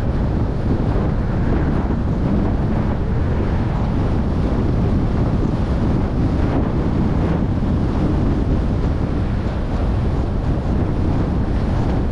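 Wind buffeting the microphone of a moving car, with road noise beneath: a loud, steady low rumble.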